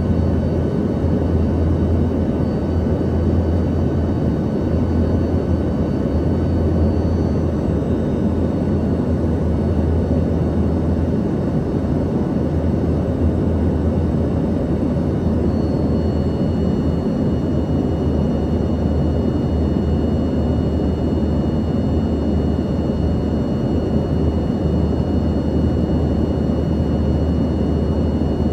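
Cabin noise of an Embraer ERJ-145 in flight: a steady low drone and rush from its rear-mounted Rolls-Royce AE 3007 turbofans and the airflow, with faint steady whine tones over it. About halfway through, the whine tones shift slightly in pitch.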